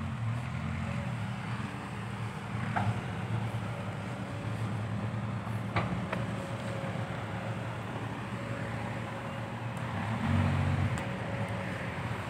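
Isuzu Deca 195 dump truck's diesel engine running through its new triple-tip exhaust as the truck drives across the dirt, growing louder about ten seconds in.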